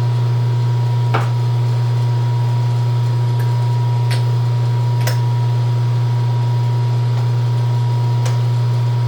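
Rotary phase converter humming steadily and loudly, with a thin steady high tone above it. Five light clicks and taps come through, the first about a second in and the last near the end.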